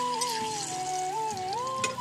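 Background music: a sustained melody line that slides and steps in pitch. Under it is a faint sizzle of kuttu-flour pakoras frying in oil in a kadhai, with a single click near the end.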